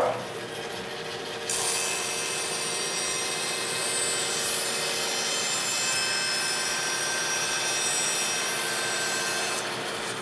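Bandsaw with a 3/4-inch blade ripping a thin strip off the edge of a 2x6. A steady cutting hiss sits over the saw's running hum from about a second and a half in, and it drops away near the end as the blade leaves the wood. The cut is smooth and even on a freshly tuned saw.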